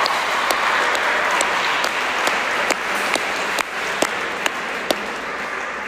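Audience applauding after a point, with several sharp single claps standing out from the general clapping; the applause thins out toward the end.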